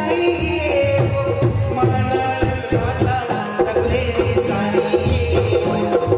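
Live Indian devotional folk music: dholak drums keep a steady beat under a keyboard melody, with a rattle shaking in time.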